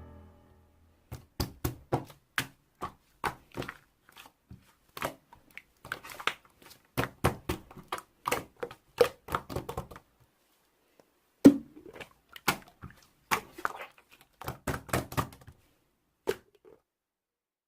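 Slime being squished and poked by hand, giving many quick, sharp clicks and pops. They pause briefly about ten seconds in, then run on to a last pop near the end.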